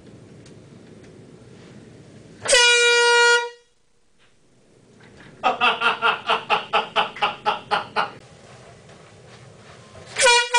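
Handheld air horn blasting: one steady, loud blast of about a second, a loud fast run of about a dozen short pulses in the middle, and a second blast starting near the end.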